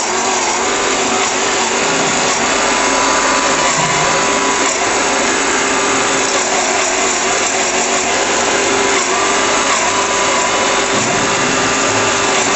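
Electric cone grinder running steadily as its rotating cone grinds peanuts into peanut butter: a continuous mechanical whir with a constant hum underneath.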